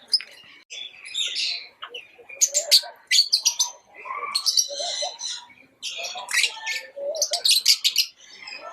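Lovebirds chirping in quick bursts of rapid high-pitched notes, with lower squeaky calls between them.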